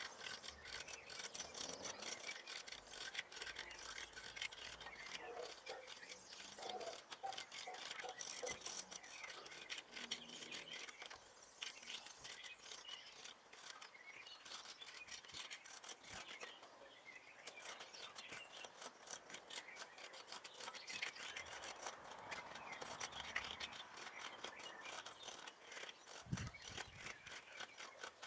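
Garden rake scraping faintly over loose bare soil in repeated strokes, raking sown lawn seed just under the surface.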